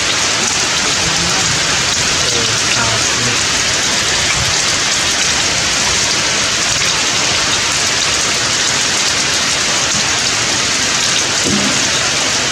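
Heavy rain falling steadily: a loud, even hiss of drops striking the ground and foliage.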